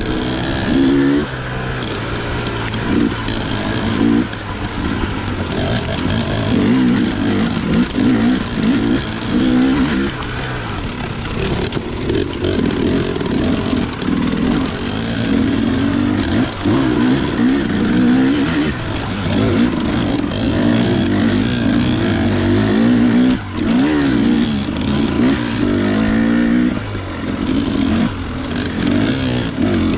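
Two-stroke dirt bike engine ridden hard, its revs rising and falling again and again every second or two as the throttle is worked.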